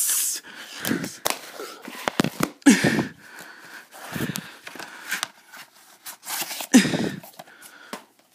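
Clicks and rubbing from handling against the phone's microphone, with a few short, isolated vocal sounds from a person's voice.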